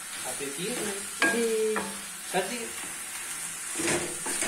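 Wooden spatula stirring and scraping chicken liver and gizzards frying in an aluminium pan over a gas flame, over a steady sizzle, with a few knocks of the spatula against the pan and a brief held tone about a second in. This is the final bhunai, roasting the finished masala with a stir.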